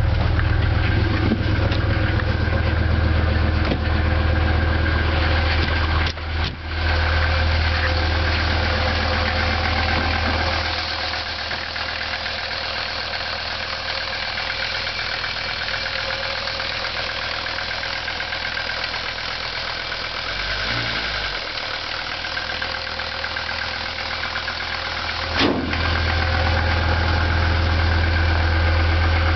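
Mercedes-Benz W115 diesel engine idling steadily just after a cold start in about −19°F cold. Its level drops about ten seconds in and comes back up near the end.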